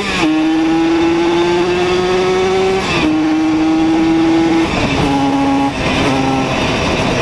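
Simson moped's two-stroke single-cylinder engine pulling hard under acceleration, its pitch climbing slowly in each gear and dropping at each upshift, about four shifts in all. Near the end the engine note fades as the throttle eases off.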